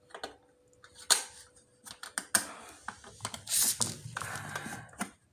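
Hard plastic generator cover being handled and fitted back onto the frame by hand: a series of sharp clicks and knocks, with a short stretch of scraping and rubbing about three and a half seconds in.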